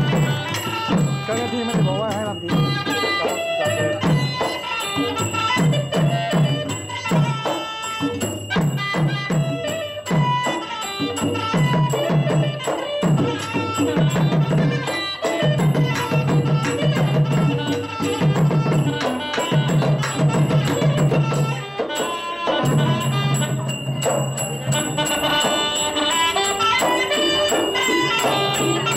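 Traditional southern Thai Nora dance music from a live ensemble: a reedy wind melody over steadily repeated drum strokes and small percussion.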